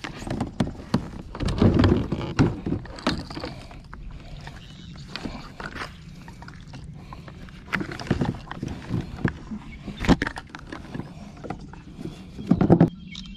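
Handling noises in a plastic fishing kayak: irregular knocks, bumps and rustles as a largemouth bass and gear are moved about on the deck, with a few louder bumps about two seconds in, around ten seconds and near the end.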